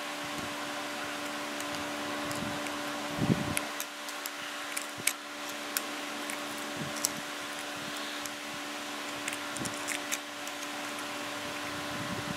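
Light clicks and scrapes of a steel pick probing inside a brass truck air-dryer check valve, over a steady background hum. The loudest knock comes about three seconds in.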